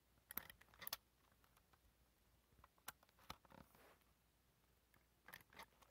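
Near silence, with a few faint clicks and rustles from handling a Furby toy to reset it.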